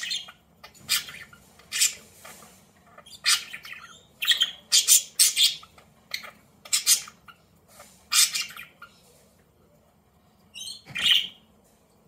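Budgerigar calling in a run of short, harsh chirps and squawks, about a dozen in all, then a pause before one last call near the end.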